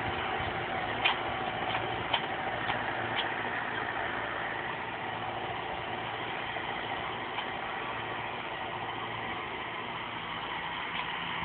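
Tractor engine running steadily while it works a disc plough, with a few short sharp knocks in the first three seconds.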